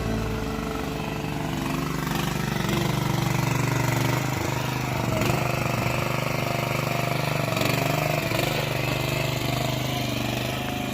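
Engine of a U Dig 40 compact backhoe running steadily, with small dips in pitch as it works.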